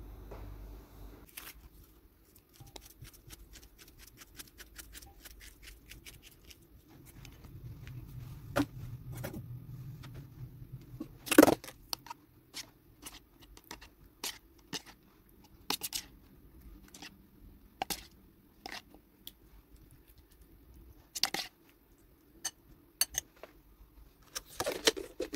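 Bowls and a spoon handled on a table: scattered light clicks and knocks, with one louder knock about halfway through and a quick cluster near the end.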